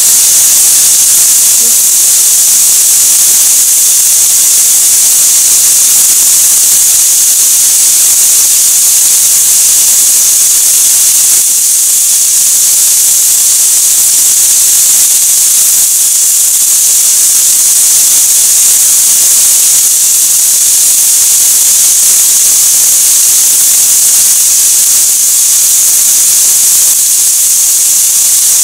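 Chicken pieces sizzling steadily in hot oil in a frying pan: an even, loud hiss.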